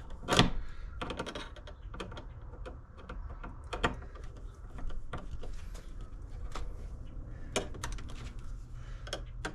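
Irregular small clicks and taps of a screwdriver and wires against a 50-amp receptacle as its terminal screws are tightened down on the wires.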